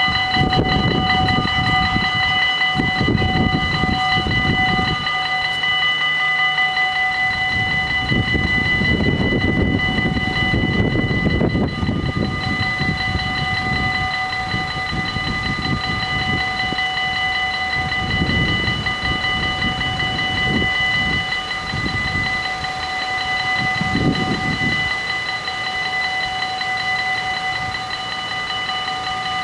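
Dutch level-crossing warning bells ringing steadily and without a break while the half-barriers come down and stay closed. Irregular swells of low rumble come and go underneath.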